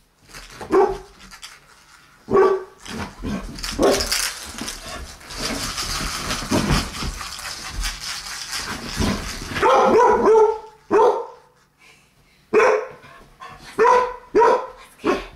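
Dog barking in short, separate barks, a few near the start and a quicker run of them in the last five seconds. Between these, about five seconds of scuffling noise.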